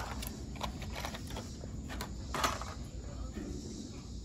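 Scattered light clicks and knocks of hands working on the horn's wiring, with one louder knock about two and a half seconds in, over a steady low rumble.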